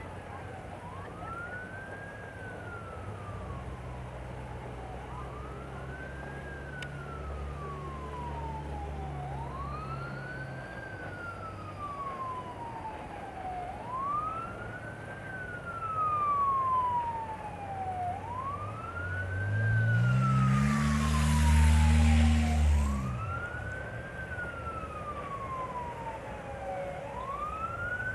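Emergency siren wailing over and over, each cycle rising quickly and sliding slowly back down, about every four and a half seconds. About twenty seconds in, a nearby engine rises in pitch with a loud hiss for a few seconds.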